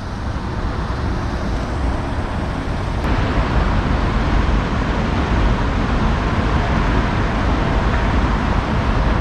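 Steady outdoor rumble and hiss, a continuous noise heaviest in the low end, growing a little louder about three seconds in.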